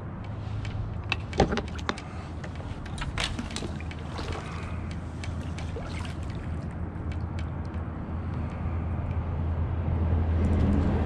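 Water lapping and sloshing against a plastic kayak hull and the bridge pilings, over a steady low rumble. Scattered small knocks and clicks run through it, the sharpest about a second and a half in.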